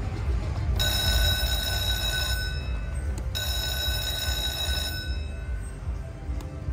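Chica Bonita video slot machine ringing out its win tally as the bonus win counts up at the end of the free games: two stretches of steady high ringing tones, each about a second and a half, over a constant low rumble.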